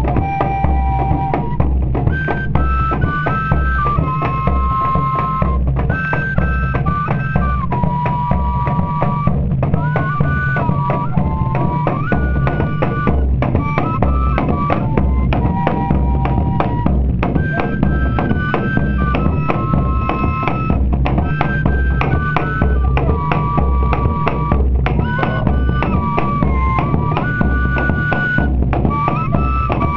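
Pífano (Brazilian fife) music: a fife plays a stepping, repeating melody of held notes over a steady drum rhythm.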